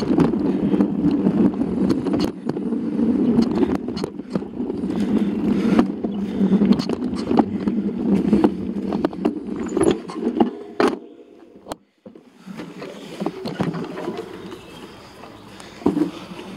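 Mountain bike riding down a dirt singletrack: tyre rumble on the dirt with the bike rattling and frequent sharp knocks as it goes over bumps. It drops away almost to nothing about eleven seconds in, then carries on more quietly.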